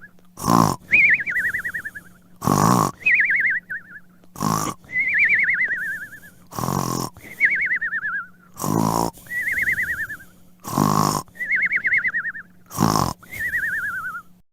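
Cartoon snoring sound effect looping: a harsh snort on the in-breath followed by a warbling whistle that falls in pitch on the out-breath, repeating about every two seconds, seven times.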